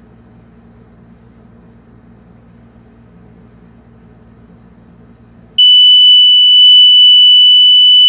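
Vansona piezo buzzer on a homemade 555-timer kitchen timer comes on sharply about five and a half seconds in with one loud, steady, high-pitched tone. The tone is the alarm that the 1-minute interval has run out, which by the stopwatch came at about 1 minute 8 seconds.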